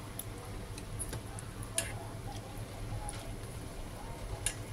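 Chopsticks clicking against a metal pot while stirring and lifting noodles: a few scattered sharp clicks, the loudest about two seconds in and another near the end, over a low steady hum.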